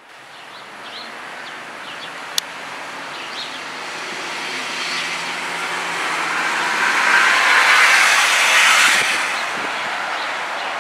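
A passing vehicle: its noise grows steadily louder, peaks about seven to nine seconds in, then eases off a little.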